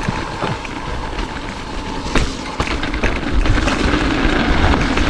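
Mountain bike running down a dirt trail: tyres rolling over the ground, with frequent clicks and rattles from the bike over bumps, and wind rumbling on the microphone. The rumble grows a little louder about three seconds in.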